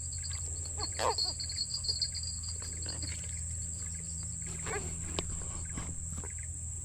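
A baung catfish held in the hand while being unhooked, giving a few short croaks that fall in pitch, about a second in and again near five seconds. A steady insect buzz and a low hum run behind.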